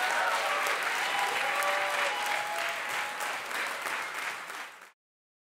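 Theatre audience applauding at the end of a stand-up set. The applause fades away near the end and cuts to silence.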